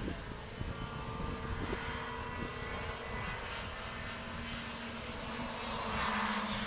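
Racing kart engine running at speed: a steady, even drone that grows a little louder near the end.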